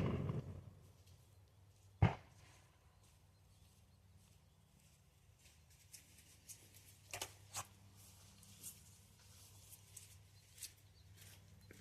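The echo of a rapid-fire string from an AR-15 pistol dies away. About two seconds in there is a single sharp crack, followed by faint scattered clicks and taps of handling.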